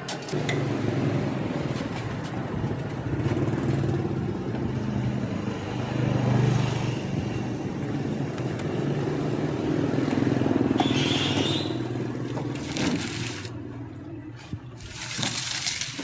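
Motor vehicle engine running steadily, with a brief hiss about eleven seconds in and a few sharp clicks near the end.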